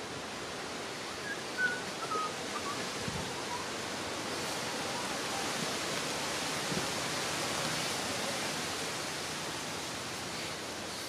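Steady rushing outdoor ambience, swelling slightly in the middle, with a faint descending run of short chirps in the first few seconds.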